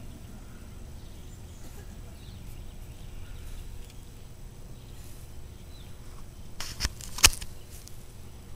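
Faint, steady outdoor background noise, broken about seven seconds in by a few sharp clicks, the last one the loudest.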